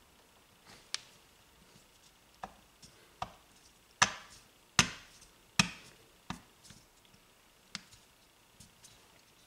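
Metal parts knocking and clacking against an aluminium starter motor housing as a part is worked and lined up into it by hand. Three loud knocks come close together midway, about one every 0.8 s, among fainter scattered taps.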